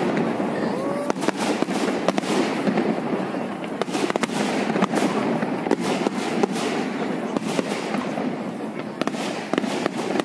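Fireworks display: aerial shells bursting overhead, with many sharp bangs and cracks coming at irregular intervals over a steady background hubbub.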